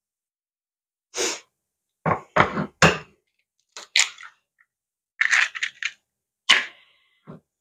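Eggs being cracked open: a string of short, sharp taps and cracks as shells are knocked against a bowl's rim and broken apart, with three quick knocks about two seconds in.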